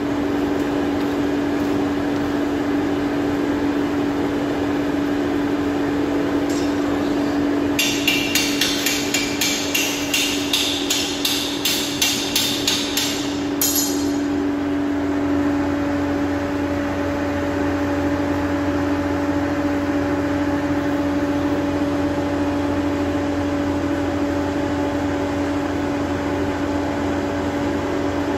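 Hand hammer beating heated bar stock on an anvil in a quick run of about fifteen ringing blows, two to three a second, lasting about six seconds: forging the end of the bar to a square section. A steady machine hum runs underneath.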